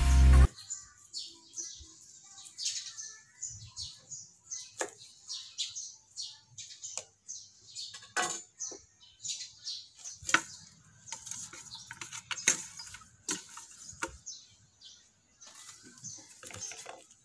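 Small birds chirping: many short, high chirps at an uneven pace. A few sharp clicks and knocks from things being handled on the table come through, the loudest at about 8, 10 and 12 seconds.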